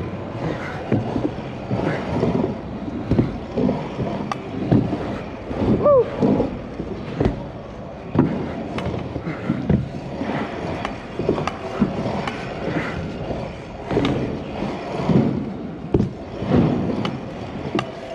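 Stunt scooter riding an indoor pump track: the small wheels rolling and rumbling over the ramps, with frequent irregular knocks and clatters from the wheels and deck.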